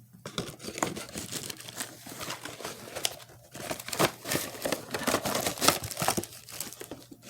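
Packaging being handled as the smoke alarm's packed parts are unwrapped and taken out of the box: continuous irregular crinkling and rustling with sharp crackles.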